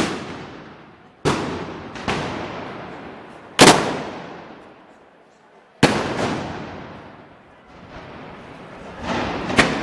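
A series of loud gunpowder blasts, about six at irregular intervals, each followed by a long echo that fades away.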